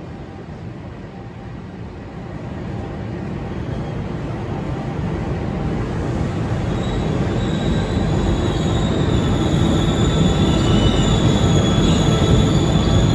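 Passenger train approaching, its low rumble growing steadily louder. From about seven seconds in, high steel-wheel squeal on the rails rides over it.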